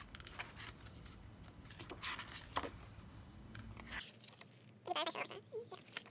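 Glossy pages of a K-pop album's photo book being turned quickly, paper rustling and flapping in several quick strokes. A brief murmur of a voice comes about five seconds in.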